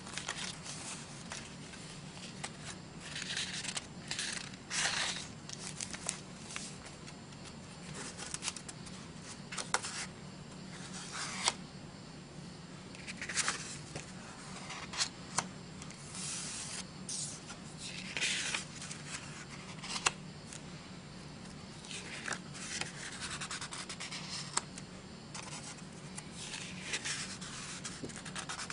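Sheets of cardstock in a paper pad being turned over and slid against one another, in short irregular rustles with a few sharp light taps. A faint steady low hum runs underneath.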